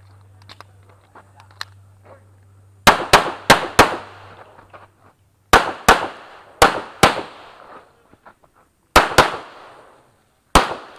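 Pistol fire in quick pairs of shots. After about three seconds with only faint clicks, five pairs ring out, each pair a fraction of a second apart, and a single shot follows near the end.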